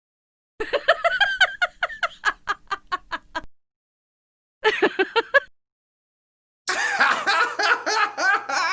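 Three separate laughter sound effects with dead silence between them: first a run of rhythmic "ha-ha" pulses, about four a second, fading over roughly three seconds; then a short laugh of about a second; then, near the end, a denser, fuller laugh that carries on past the end.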